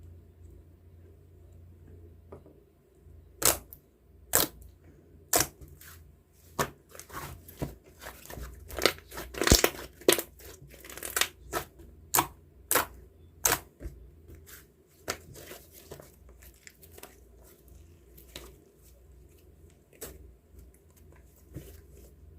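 A run of sharp, irregular tearing and crinkling crackles, densest and loudest for the first half after about three seconds in, then sparser and fainter.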